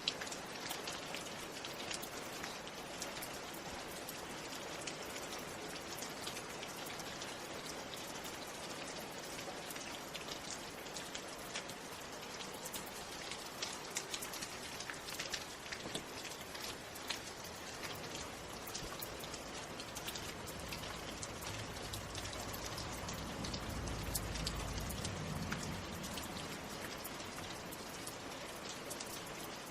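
Steady rain falling, with many individual drops ticking against a surface. In the second half a low rumble swells and fades again over several seconds.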